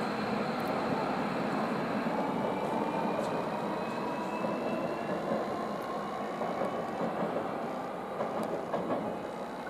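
Tobu 500 series Revaty electric multiple unit moving slowly along the platform, a steady rumble of wheels on rail with a faint electric motor whine rising slowly in pitch as the train gathers speed.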